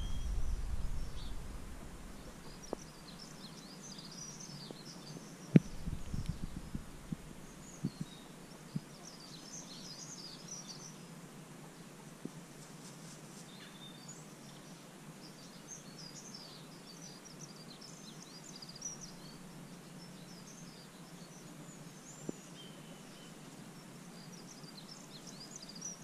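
Small wild songbirds chirping on and off in the background of a quiet outdoor scene. A low rumble sounds in the first couple of seconds and again about six seconds in, with a sharp tap about five and a half seconds in and a few fainter ticks after it.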